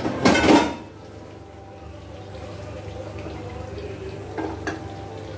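A brief loud rushing noise near the start, then a metal wok set down on a gas stove's grate with a couple of short knocks about four and a half seconds in, over a steady low kitchen background.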